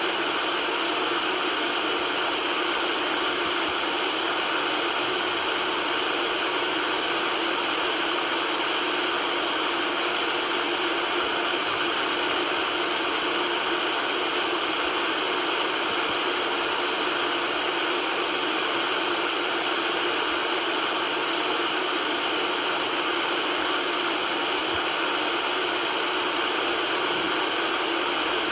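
Continuous white noise: an even, unchanging hiss with little deep bass, used as a sleep sound for soothing a baby.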